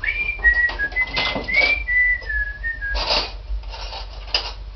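A man whistling a short tune of stepped notes for the first few seconds, while hand tools clink and knock on metal parts several times.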